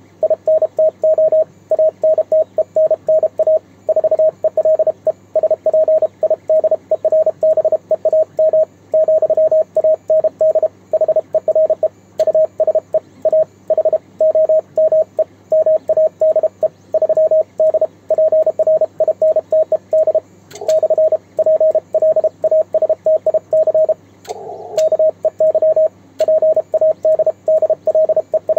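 Morse code on a transceiver's CW sidetone: a steady tone of about 600 Hz keyed on and off in quick dots and dashes, sent with a home-made 3D-printed single-lever paddle, over a faint steady hum.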